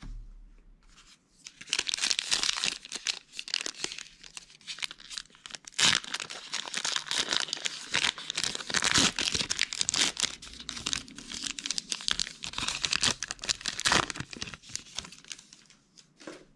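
A 2020 Diamond Kings baseball card pack being torn open, its wrapper crinkling and crackling as it is pulled apart and crumpled, starting about a second and a half in.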